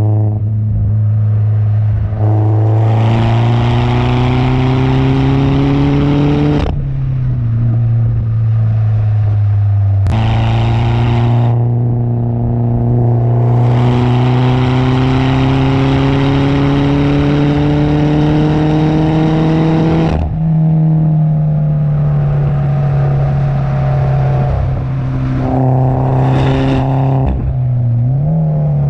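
Peugeot 208 GTi's turbocharged four-cylinder engine running through a loud aftermarket exhaust, pulling under load with the pitch rising slowly. There are two long pulls, each ending in a sudden drop as the driver lifts off or changes gear, and a shorter rise near the end.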